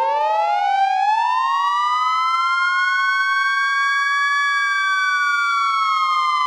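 Loud siren with a rising pitch that winds up over the first couple of seconds, then holds steady and sags slightly near the end.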